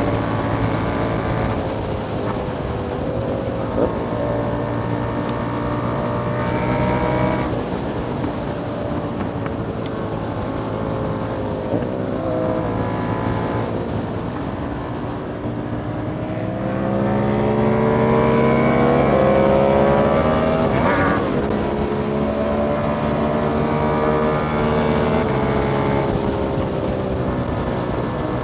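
2021 KTM 890 Duke R's parallel-twin engine breathing through an Austin Racing GP1R catless exhaust, ridden hard: it revs up through the gears, pitch climbing and then stepping down at each shift, several times over. The loudest and longest pull comes about two-thirds of the way through, followed by a steadier stretch near the end.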